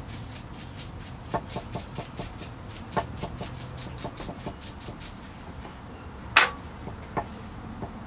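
Hand brush scrubbing moss from the bark at the base of a spruce bonsai trunk, in quick strokes at about five a second that stop about five seconds in. A single sharp knock follows about a second later.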